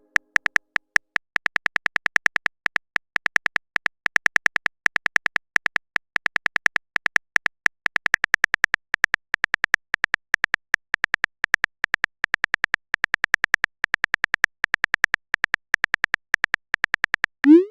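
Chat-app typing sound effect: a long, irregular run of short, identical high-pitched ticks, one per keystroke, ending near the end with a quick upward swoop like a message being sent.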